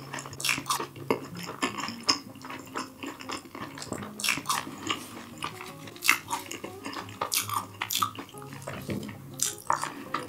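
Cutlery clinking and scraping against dishes in quick, irregular clicks.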